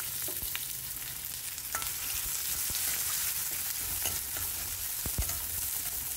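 Chopped onions sizzling in hot oil in an iron kadai, stirred with a steel ladle that clicks and scrapes against the pan a few times.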